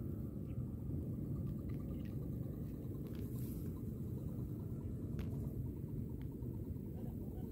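Wind rumbling steadily on the microphone, with a few faint clicks.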